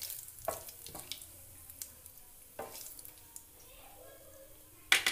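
Whole spices (bay leaf, cumin seeds and dried red chillies) sizzling gently in hot mustard oil in a nonstick frying pan, the tempering stage before the onions go in. A wooden spatula stirring them scrapes and knocks against the pan a few times, loudest near the end.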